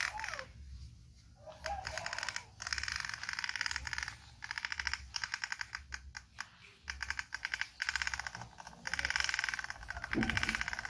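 Toy truck's wheels clattering in fast clicking bursts as it is pulled along, stopping and starting every second or two.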